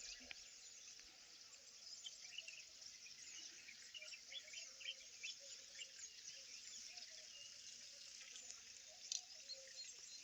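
Insects chirping: a faint, steady high chorus with many short chirps scattered through it.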